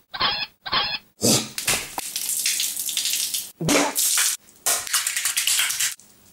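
Wet food mess of raw chicken scraps and cracked egg being slapped, smashed and smeared by hand on a tiled floor. Short wet slaps come first, then a stretch of squelching and scraping, a heavier splat about midway, and more slaps before it stops abruptly.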